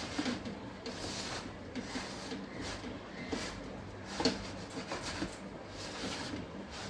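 Soft, irregular sounds of a wheat-flour (atta) dough being mixed with water to a soft consistency, with a few slightly sharper touches against the bowl or utensil.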